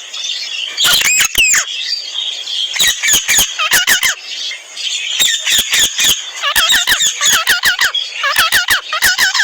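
Parrot squawking in quick runs of short, harsh calls, with brief lulls between the runs.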